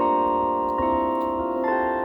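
Church bells from 1889 ringing: three strokes of different bells a little under a second apart, each ringing on into the next.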